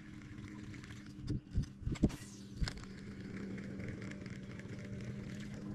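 A steady low motor hum runs under a few sharp knocks and clicks between about one and three seconds in, with a brief falling swish among them.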